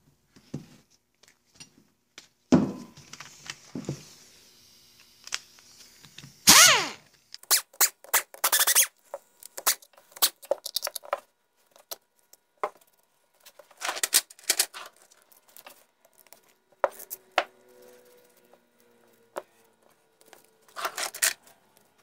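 Metal parts of a 1972 Johnson 20 HP outboard powerhead being taken apart by hand: scattered clinks, knocks and scrapes of bolts and cover plates, with a few short louder bursts about six to nine seconds in, near fifteen seconds and near the end.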